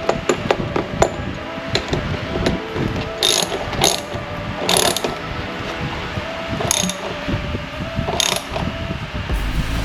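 Hand ratchet wrench clicking in quick runs as a bolt is turned, with a few louder sharp metal knocks in between.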